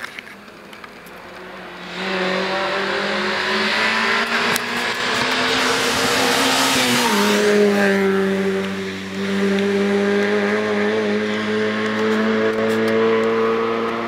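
Rally car approaching at speed and passing close by. Its engine note drops in pitch about seven seconds in as it goes past, then carries on steady as it drives on along the stage.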